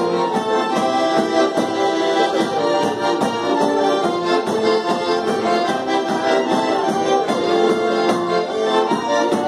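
Two piano accordions playing a lively Polish folk dance tune, with a small hand percussion instrument struck in a steady beat.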